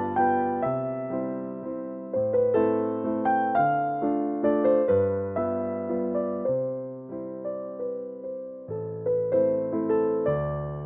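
Background piano music: a gentle melody of struck notes over a changing bass, each note fading away after it is struck.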